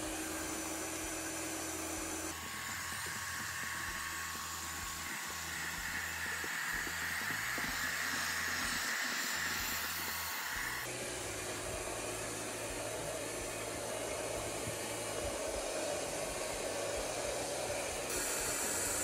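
The erabros LS1 robot vacuum is running, and its suction fan gives a steady whirring hiss as it vacuums up dry cat food. The tone of the sound changes abruptly twice.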